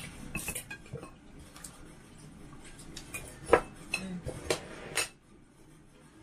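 Tableware at a meal: plates, bowls and cutlery clinking and knocking in scattered sharp strikes, the loudest three about three and a half, four and a half and five seconds in, then quieter.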